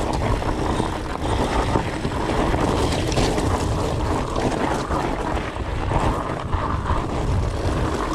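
Fat bike tyres rolling over loose rock and gravel on desert singletrack, a steady rumbling noise with many small clicks and rattles, mixed with wind buffeting the microphone.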